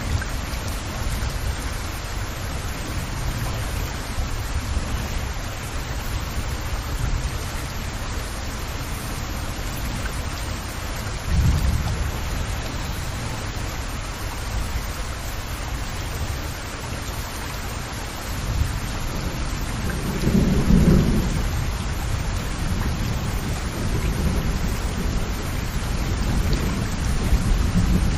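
Steady rain falling, an even hiss of many drops. Two low rumbles rise under it, a short one near the middle and a longer one later.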